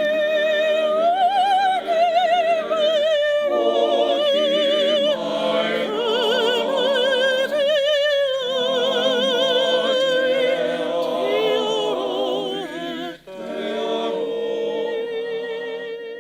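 Music: a high solo voice singing in an operatic style with wide vibrato over sustained chordal accompaniment, pausing briefly a few times. It ends on a long held note that fades out.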